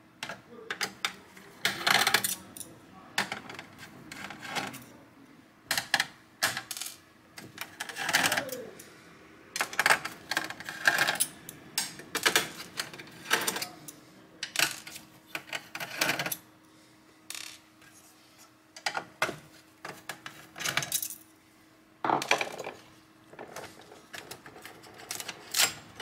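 A screwdriver backs small screws out of a steel chassis shield, with irregular metallic clicks, scrapes and clatters as the screws come loose and are set down.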